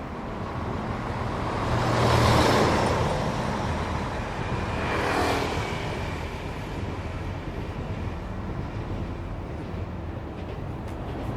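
Road traffic: a steady hum of passing cars, with two vehicles going by close, the first about two seconds in and the second about five seconds in.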